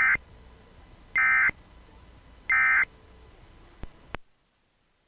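Emergency Alert System end-of-message signal: three short, loud bursts of digital data tones about 1.3 s apart, marking the close of the alert. Two sharp clicks follow about 4 s in, and then the audio cuts off.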